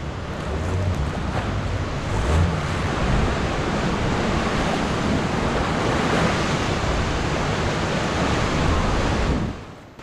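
Rough sea, waves surging and breaking, with wind buffeting the microphone.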